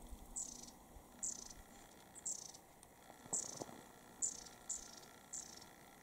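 Long-tailed tit (shima-enaga) giving a series of short, thin, very high calls, each dropping slightly in pitch, about one a second.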